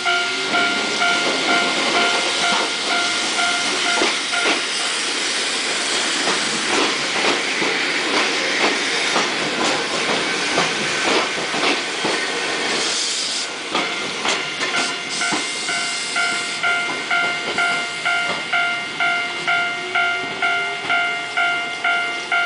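Level-crossing bell ringing just under twice a second, covered for about ten seconds by an electric commuter train passing close: wheels clattering over rail joints with motor noise, and a short sharp hiss about thirteen seconds in. The crossing bell rings on again from about fifteen seconds in.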